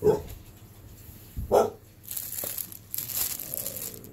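A dog barks twice, about a second and a half apart. Then comes about two seconds of crinkling from clear plastic wrap being handled.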